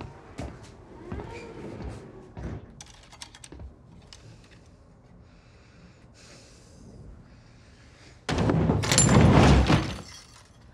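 Film sound effects: scattered knocks and clicks, then a sudden loud burst of noise about eight seconds in that lasts nearly two seconds and stops abruptly.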